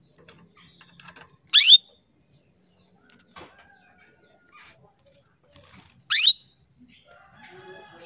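Female canary calling to a male: two loud, quick calls about four and a half seconds apart, each sweeping steeply upward in pitch, with faint chirps between them.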